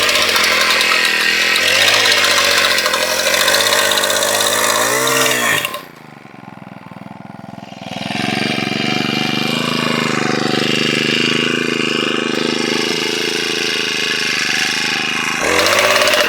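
Gas-powered fence post driver's small engine running and hammering a post in, its pitch wavering under load. It falls back to a quieter idle about six seconds in, then picks up again about two seconds later and runs steadily.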